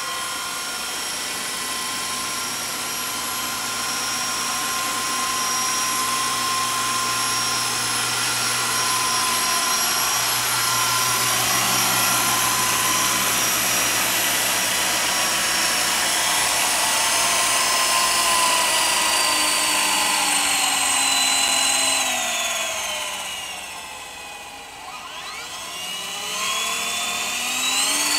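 Walkera Lama 400 radio-controlled coaxial helicopter, its electric motors and rotors whining steadily. Near the end the pitch slides down and the sound drops as the rotors slow, then the whine climbs again as they spin back up.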